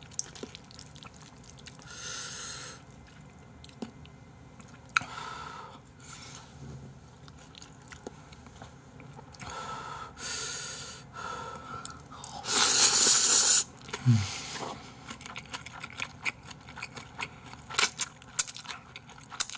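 Close-miked eating: a man slurping Chapagetti black-bean noodles in several short slurps, the longest and loudest a little past halfway, with wet chewing, crunching and mouth smacks in between.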